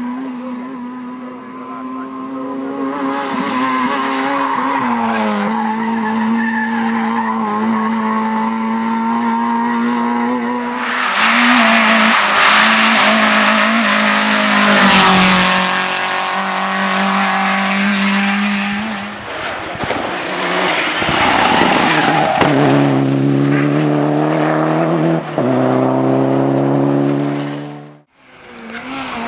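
Rally car engine running hard at high revs, joined about ten seconds in by a loud rush of tyre and road noise for several seconds. In the last part the revs climb in steps with short breaks between gear changes, and the sound cuts off suddenly near the end.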